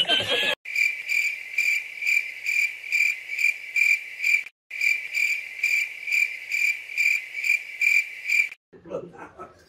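Cricket chirping sound effect: a high, even chirp repeating about two and a half times a second. It cuts out for a moment about halfway, then stops abruptly near the end.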